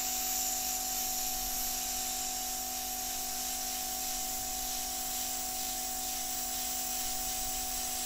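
Hot air rework station blowing a steady hiss of hot air, with a constant fan whine underneath, as it heats a surface-mount chip to melt its solder for removal.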